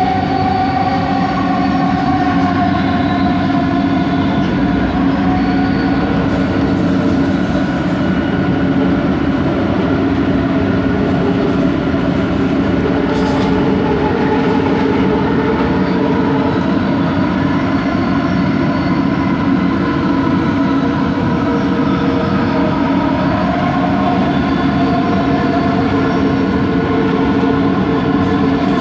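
Bombardier Innovia ART 200 train running, its linear induction motor giving a continuous whine of several layered tones over the running noise, the higher tones drifting slowly up and down in pitch; the uploader calls it a weird motor noise.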